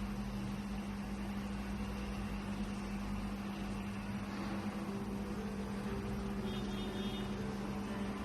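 Steady low hum over a constant hiss, as from a running fan or appliance. Faint music comes in about halfway through.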